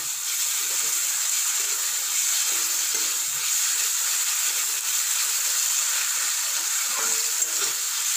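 Chopped onion, beans and carrots sizzling steadily in hot oil in a metal kadai, with a steel spatula stirring them and scraping against the pan now and then.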